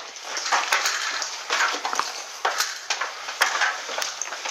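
Footsteps scuffing on a gritty floor, about one a second, with small clicks and rattles of carried gear.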